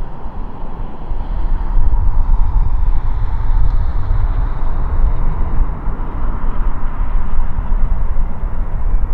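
Boeing 787-9 Dreamliner's twin turbofan engines on final approach with the landing gear down: a steady low rumble with a faint high whine, getting louder about two seconds in as the jet closes in.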